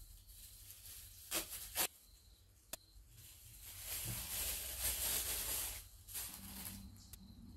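Plastic masking sheeting and masking tape being handled and pressed over a windshield: a few short scratchy rustles and a sharp click, then a longer crinkling rustle of the plastic from about three to six seconds in.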